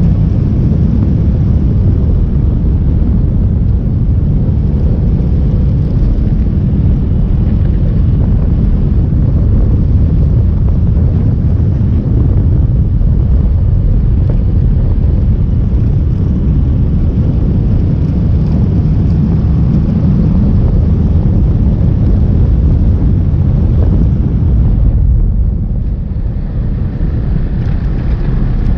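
Steady low rumble of a road vehicle driving, heard from on board with road and wind noise, easing slightly near the end.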